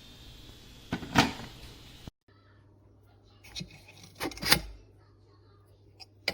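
A few sharp clunks and knocks, as of objects being handled and set down. Under the first two seconds runs a steady hiss that cuts off suddenly, and after it a low hum.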